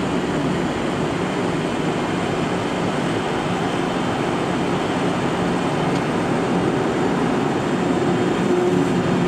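Steady flight-deck noise of a Boeing 767-300ER in flight: an even rush of air and engine noise with a low hum underneath, unchanging throughout.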